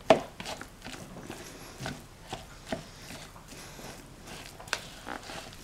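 Fork mashing canned tuna in a plastic mixing bowl, with irregular clicks and taps of the fork against the bowl, the sharpest right at the start.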